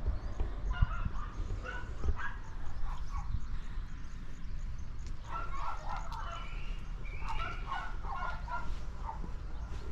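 Short animal calls come in three clusters: one near the start, one about five seconds in and one about seven seconds in. A steady low rumble runs underneath.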